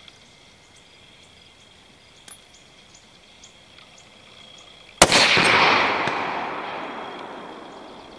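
A single shot from a Springfield 2020 Redline .308 Winchester bolt-action rifle fitted with a radial muzzle brake, about five seconds in, followed by a long echo that fades over about three seconds. Before the shot there is only a faint, steady high whine.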